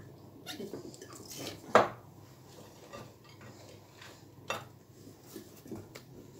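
Fresh green peppers being pressed down by hand into a glass jar, with a few sharp clinks and knocks against the glass. The loudest comes about two seconds in and another a little after four and a half seconds.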